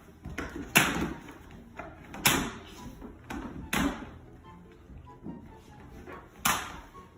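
Four heavy bangs like a door being struck or slammed, at uneven intervals, with lighter knocks between them over background music.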